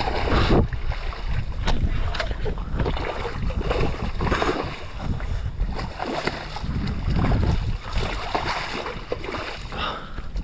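Wind buffeting the microphone over water splashing around a small boat, with a few scattered knocks.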